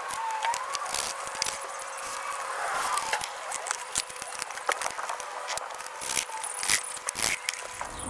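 Scattered clicks and light knocks of hands handling the battery pack and plastic panels in an electric motorbike's battery compartment, over a steady outdoor hiss with a few faint chirping calls.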